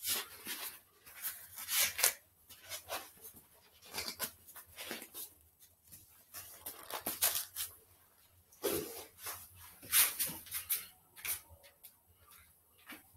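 Irregular rustling, scraping and handling noises as a boxing glove is pulled onto a hand and worked into place.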